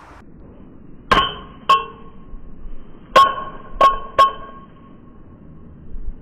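A glass bottle struck five times with sharp ringing clinks: two about a second in, then three more close together a couple of seconds later.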